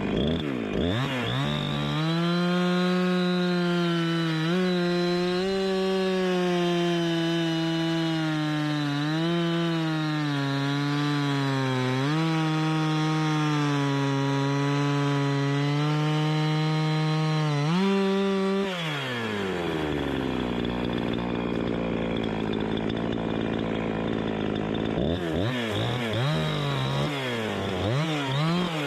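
Gas chainsaw revved up and held at full throttle for about sixteen seconds while cutting wood, its pitch dipping repeatedly as the chain loads in the cut. It then drops back to idle, and near the end it is revved in a few short blips.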